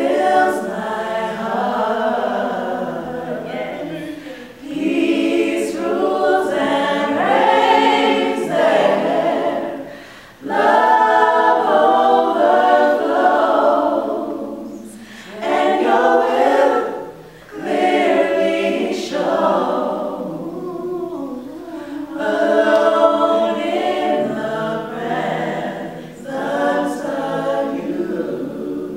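Small mixed group of gospel singers, men and women, singing a worship chorus a cappella in harmony, in sung phrases a few seconds long with short breath breaks between.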